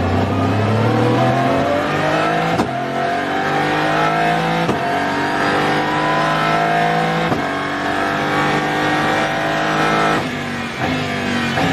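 Aston Martin Vantage GT3 Evo's twin-turbo V8 heard onboard, accelerating hard with the pitch climbing through the gears and three crisp upshifts. Near the end the driver lifts off and the engine drops through several quick downshifts with short throttle blips.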